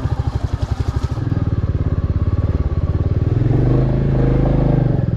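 Motorcycle engine running under the rider with a fast, even pulsing beat. Around the middle the revs rise and then ease back once.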